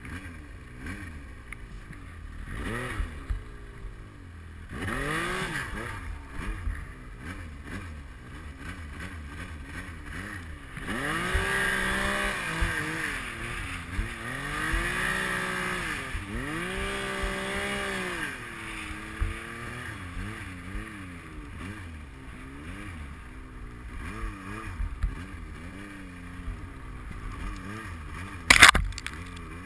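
Yamaha Nytro snowmobile's four-stroke three-cylinder engine revving up and easing off repeatedly as the sled ploughs through deep powder snow. A single sharp knock comes near the end.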